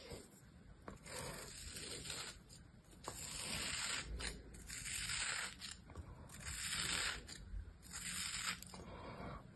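A small knife blade slicing through a moulded block of kinetic sand. Each cut makes a grainy, crunchy scraping hiss, about six cuts roughly a second apart.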